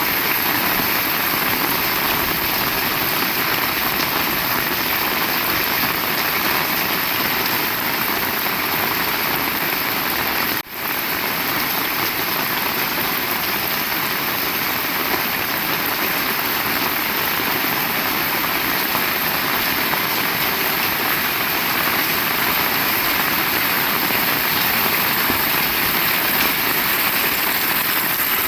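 Heavy rain falling steadily, a dense even hiss, which cuts out for an instant about ten seconds in.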